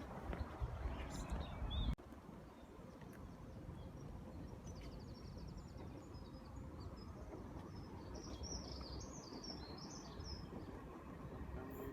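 A low rumble with a few knocks cuts off abruptly about two seconds in, leaving steady background noise. A bird chirps several times over that noise near the end, after a quick trill about halfway through.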